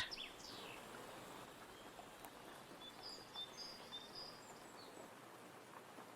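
Faint outdoor ambience, a steady low hiss, with a few short high bird chirps in the middle.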